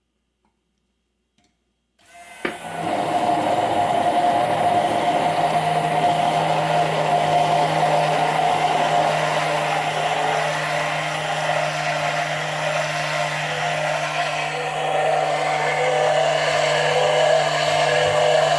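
Near silence, then an immersion blender is switched on about two seconds in. Its motor runs steadily as it blends aquafaba and oil into mayonnaise.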